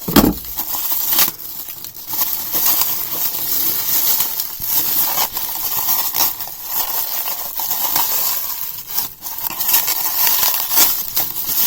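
Plastic packaging bags crinkling and rustling as a wrapped item is unwrapped by hand, with a thump near the start.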